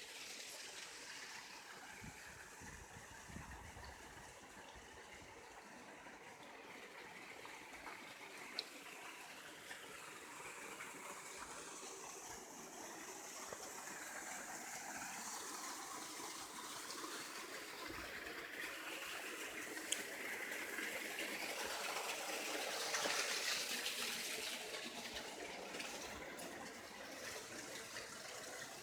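Hot spring water running and trickling in a small stream, growing louder to a peak a little past the middle, then easing off.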